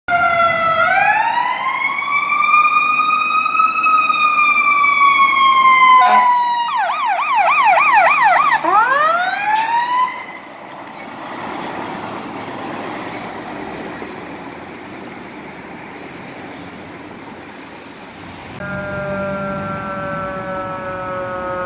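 Emergency-vehicle sirens: a loud wail rising, holding, then falling; about six seconds in, a fast yelp that swings back into a rising wail. About ten seconds in the sirens stop and only traffic noise is left, until near the end a distant siren comes in on a steady tone that slowly falls in pitch.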